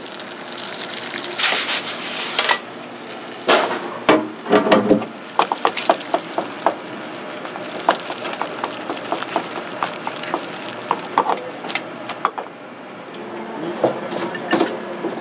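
Kitchen cooking at a frying pan: a steady sizzle under repeated clinks and scrapes of metal utensils against pans and dishes, with a few louder scraping bursts in the first few seconds.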